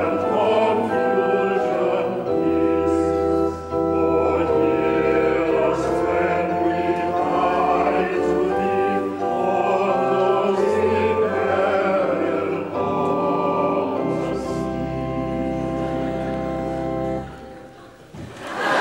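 A choir singing slow held chords over sustained organ bass notes, like a hymn. The music ends and fades out near the end.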